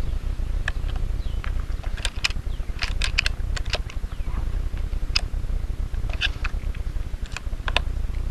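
Steady low rumble of wind on the microphone, with a scatter of short sharp clicks about two to eight seconds in.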